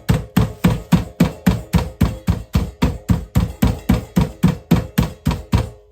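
Rolling pin pounding a chicken breast flat inside a plastic bag on a cutting board: steady thumps at about four a second, stopping near the end once the meat is flattened.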